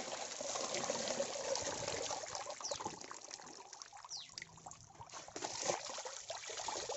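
Water poured from a pot over the roots of a freshly dug ginger clump, trickling and splattering through the roots as the soil is washed off. The pouring runs steadily for about three seconds, thins to drips and small splashes in the middle, and picks up again near the end.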